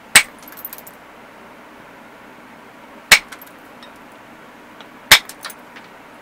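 Three sharp glassy clinks of knapping strikes on the edge of an obsidian slab, each followed by a few faint small clicks.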